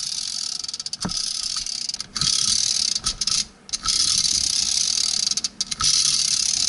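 Plastic Minion Happy Meal toy spinning its hula hoop as the top of its head is pressed down: a continuous plastic whirring rattle, broken by a few short pauses.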